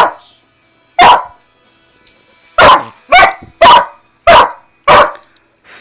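A dog barking angrily in short, loud single barks, about seven in all: two spaced a second apart, then a quicker run of five from about two and a half seconds in. The barking is her protest at not being allowed to lick her stitches after being spayed.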